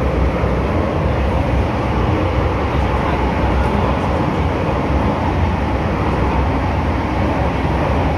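Steady rumble of an MTR M-Train running through a tunnel, heard from inside the carriage.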